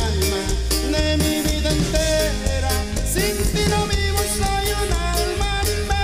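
Latin dance band playing an instrumental passage with a steady beat, a heavy repeating bass line and drums.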